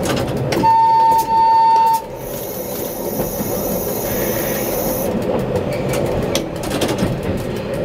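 Tram running along its track with a steady rumble. About half a second in, its horn sounds two short blasts back to back, and a thin, very high whine follows for about three seconds.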